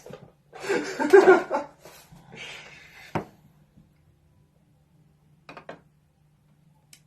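A man's voice briefly, loudest near the start, then a single sharp click and a faint steady low hum.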